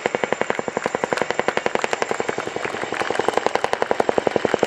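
Boeing Chinook HC6A tandem-rotor helicopter in flight, its two rotors giving a steady, rapid blade thudding of about ten beats a second.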